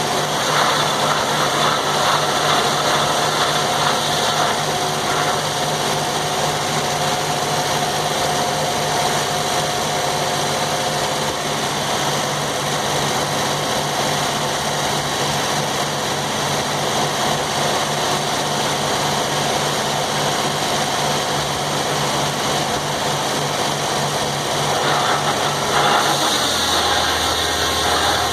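Circular sawmill running with its engine held at a steady pitch. Near the end the engine's pitch drops.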